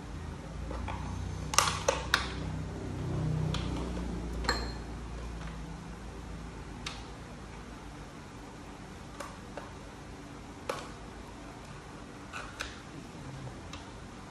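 Lobster shell being cracked and picked apart by hand: scattered sharp cracks and clicks, about eight in all, the loudest in the first few seconds. A low hum runs underneath.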